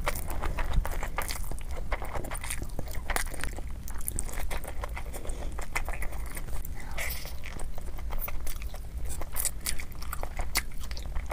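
Close-miked chewing and mouth smacks of a person eating a mouthful of noodles and sauced rice paper dumplings, with many short clicks throughout.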